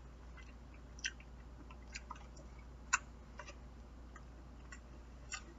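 Faint chewing with a few scattered small clicks, the sharpest about three seconds in.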